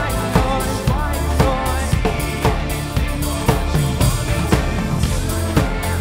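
Live band playing an instrumental stretch without vocals, the drum kit's kick and snare keeping a steady beat of about two hits a second.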